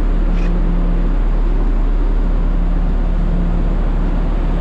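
Steady low rumble of a passenger ferry's engines, with a constant hum over a wash of noise.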